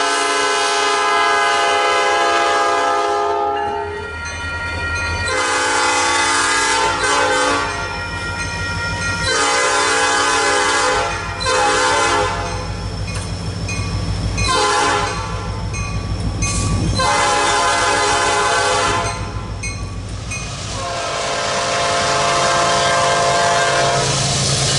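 Nathan Airchime P5 five-chime locomotive horn sounding a chord in a series of about six blasts, each a few seconds long with short gaps between. Under it, from about four seconds in, the low rumble of the passing train with wheels clicking over the rail joints.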